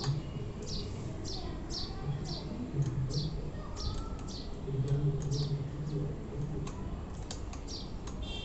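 Bird chirping over and over in short, quick downward chirps, about two a second, over a low, uneven background hum.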